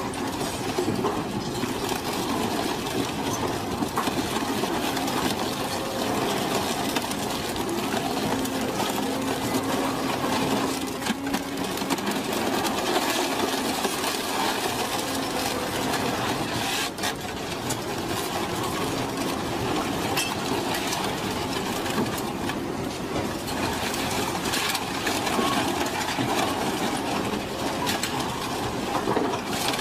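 Twin-shaft scrap shredder running, its toothed cutter discs grinding and crunching a tangle of scrap metal and wiring: a steady machine drone with a low hum and a few sharp cracks as pieces break.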